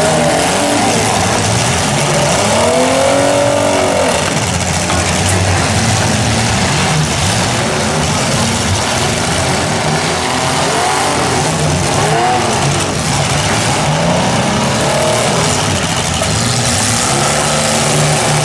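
Several demolition derby compact cars' engines revving hard together over a constant loud din, their pitch repeatedly rising and falling as the cars back up and ram each other.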